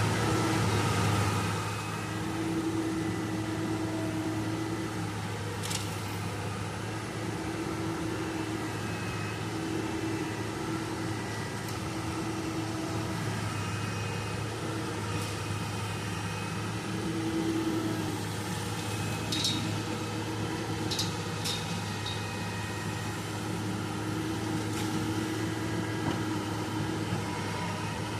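Excavator's diesel engine running steadily, with a low hum and a higher whine that rises and falls every second or two as the hydraulics work. A few sharp clicks come about two-thirds of the way through.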